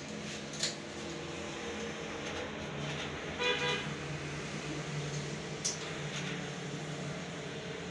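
A steady low hum with one short, buzzy, horn-like toot about three and a half seconds in, and a couple of faint clicks.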